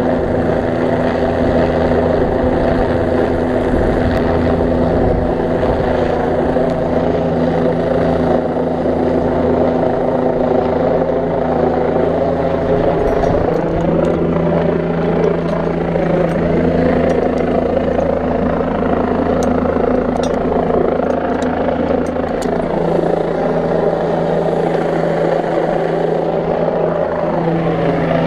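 Helicopter hovering close overhead: a loud, steady rotor and turbine drone whose pitch wavers briefly around the middle and near the end, with a few light clicks along the way.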